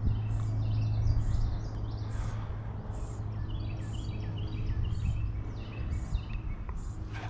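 Songbirds singing: one repeats a short, high, falling note about once a second, while others add quicker, lower chirps over it. A steady low hum runs underneath.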